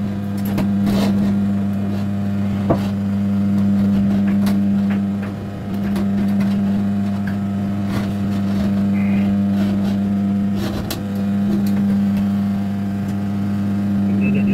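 A steady low hum, with scattered light clicks and knocks as a chrome kitchen mixer tap and its fittings are handled and hand-tightened into a stainless steel sink.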